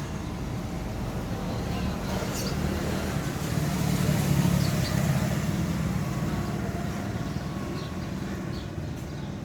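Road traffic: the steady hum of a motor vehicle that swells as it passes, loudest about halfway through, then fades, with a few faint high chirps over it.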